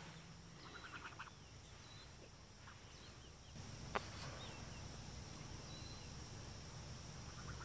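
Faint farmyard ambience: scattered faint bird calls and chirps, a steady high hum that sets in partway through, and a single sharp click about four seconds in.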